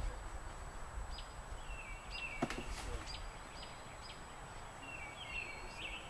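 Outdoor ambience: birds chirping in short repeated calls, over a low wind rumble on the microphone, with a single sharp knock about two and a half seconds in.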